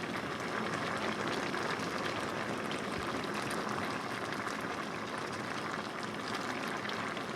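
Sea surf washing on the shore: a steady, fizzing hiss of waves.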